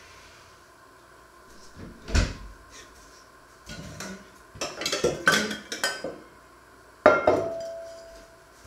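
Kitchenware being handled on a wooden counter: a knock, a run of clattering, then a sharp metallic clank from a stainless steel pot that leaves a ringing tone fading out.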